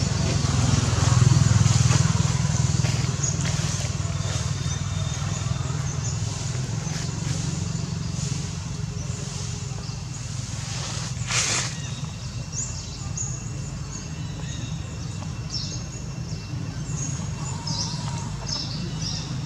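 Outdoor background with a steady low hum, loudest in the first few seconds, a single sharp knock about halfway through, and a few short high chirps in the second half.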